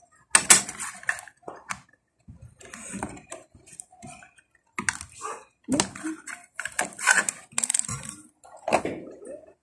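White plastic display stand of a diecast model airliner being handled and fitted together: irregular clicks, taps and rustles of small plastic parts.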